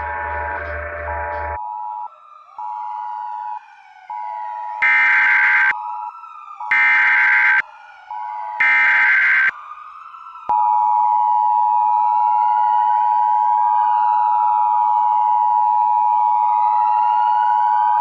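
Emergency Alert System tones over wailing sirens. A pulsed two-tone beep comes first, then three short, loud screeching bursts of SAME digital header data about two seconds apart. About a second later the EAS attention signal starts: a steady two-tone (853 and 960 Hz) that holds for about eight seconds.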